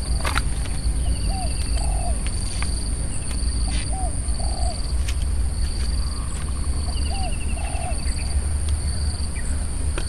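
Open-country ambience: a bird gives a short two-part call three times, about three seconds apart, with two brief fast trills higher up. Behind it are a steady high insect drone with a pulsing chirp and a steady low rumble, with a few faint clicks.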